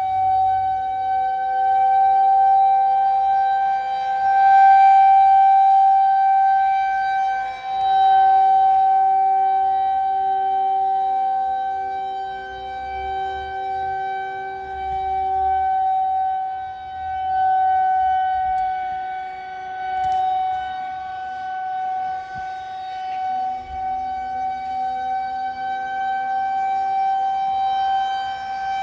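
Federal Signal 2001-130 electromechanical tornado siren sounding a test, holding one steady pitch while its loudness swells and fades every few seconds.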